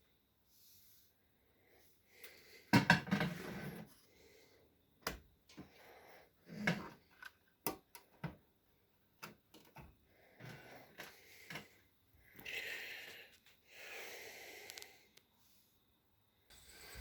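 Scattered clicks, knocks and short rustles of handling in a small room, with a quick rattle of clicks about three seconds in.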